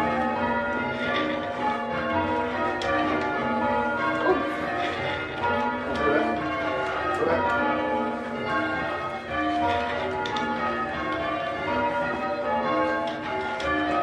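Church tower bells being change rung, heard from the ringing chamber below: a continuous run of strokes from several bells in turn, their ringing tones overlapping.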